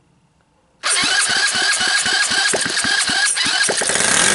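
A Chinese 125cc single-cylinder ATV engine, rebuilt with a new head and retimed valves, fires up on a test run about a second in. It then runs loudly with a quick, regular train of firing pulses.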